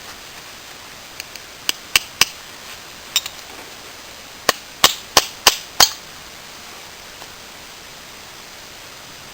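A piece of glass being knapped with a Swiss Army Knife: sharp tapping clicks as the knife strikes the glass edge to knock off flakes. A few scattered taps come first, then about halfway through five quicker strikes, roughly three a second.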